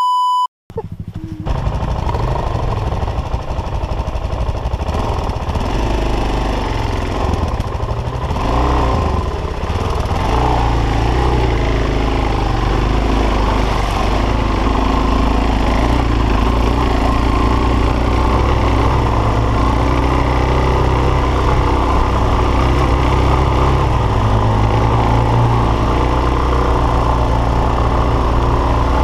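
A brief electronic beep, then a short gap, then a dual-sport motorcycle engine running continuously under load as the bike climbs a rough dirt trail, its revs rising and falling.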